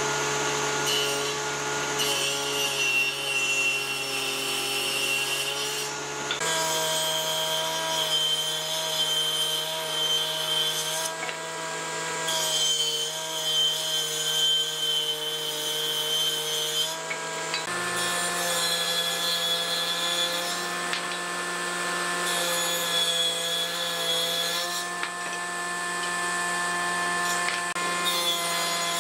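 Circular saw blade of a combination woodworking machine running, ripping a thick wooden plank lengthwise over several passes. A higher whine rises during each cut and drops back between them.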